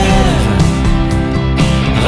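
Rock band playing: guitars, bass and drums, with a held sung note from the lead voice ending about half a second in.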